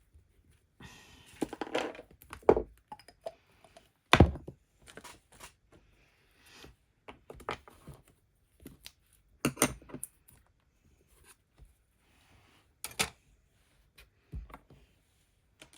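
Paper crafting handling noises: card stock and paper pieces rustling and being pressed down, with scattered knocks and taps on the work table, the loudest about four seconds in.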